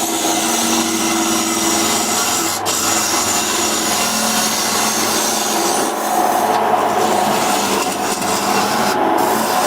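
A power tool working wood: a steady, loud abrasive cutting noise with a faint motor hum under it, briefly dipping a couple of times.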